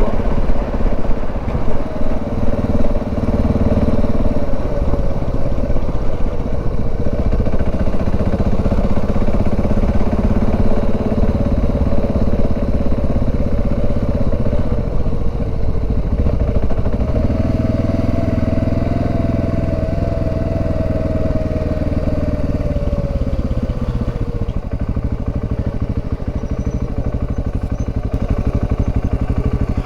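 Dual-sport motorcycle engine running under way, its pitch climbing about halfway through and easing off again a few seconds later as the throttle changes.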